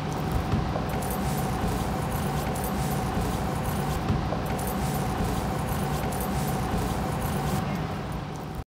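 Steady outdoor background noise with a low rumble and a faint steady hum, cutting off abruptly near the end.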